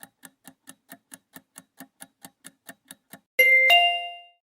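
Quiz countdown timer sound effect: quick even ticking, about four or five ticks a second for three seconds, then a two-note ding-dong chime as time runs out.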